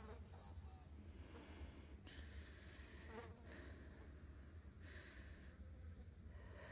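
Very quiet: a low steady hum, with faint insect buzzing that comes and goes twice.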